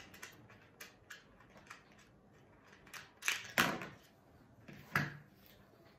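Small plastic clicks and taps of a GoPro Hero 8 action camera being handled and turned over, with two louder clacks about three and a half seconds in and another about five seconds in.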